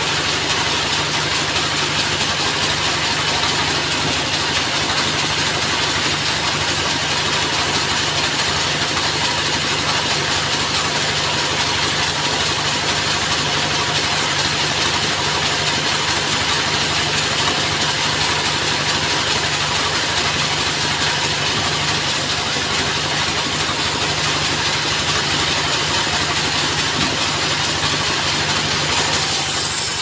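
Sawmill's engine running steadily at a constant speed, driving the saw with no change in pitch. The high hiss grows briefly louder near the end.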